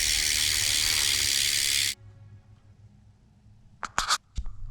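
GT Performer BMX rear hub freewheeling as the wheel spins, its pawls ratcheting so fast that they make a loud, even, hiss-like buzz. It stops suddenly about two seconds in, and a few sharp knocks follow near the end.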